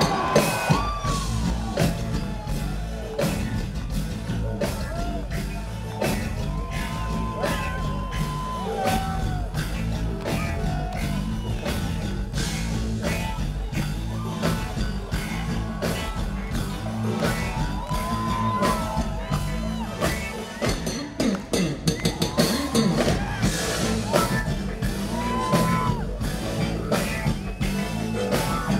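Live funk band playing: bass guitar, electric guitar, keyboards and drum kit, with singing over a steady groove.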